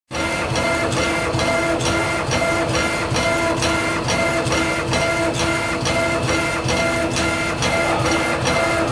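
Schnell C1325 laser engraver's gantry motors whining as the laser head rasters back and forth across a stone tile, with a tick at each turn a little under three times a second.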